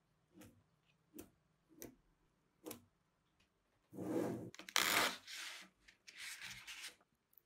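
Small magnetic balls clicking together a few times as magnetic-ball pieces are pushed into place, then two longer scraping, rattling stretches, the louder one about four seconds in, as a plastic card is worked against a sheet of the magnetic balls.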